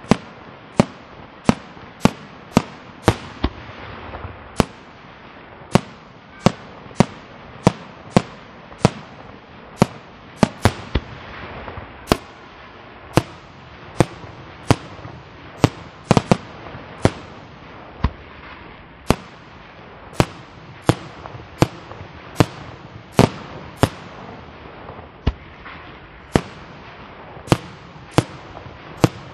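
Aerial fireworks shells bursting in quick succession, sharp bangs a little more than once a second, over a continuous hiss of burning stars and smaller reports between them.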